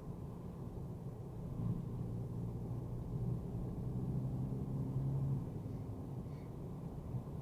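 Mercedes-AMG A35's turbocharged 2.0-litre four-cylinder engine running under way with tyre and road noise, heard as a low, muffled drone. The engine note grows louder from about a second and a half in and eases off near the five-second mark.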